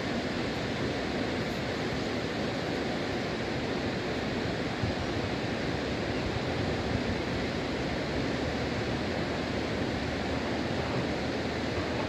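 Steady rushing of a wide mountain river, an even hiss that does not change.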